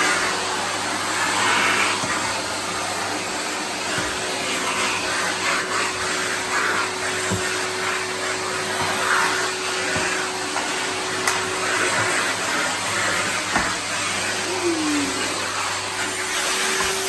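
Vintage Electrolux Z165 cylinder vacuum cleaner running, a steady motor hum over rushing air. About fifteen seconds in, the motor's pitch dips briefly and comes back up. A few light knocks are heard along the way.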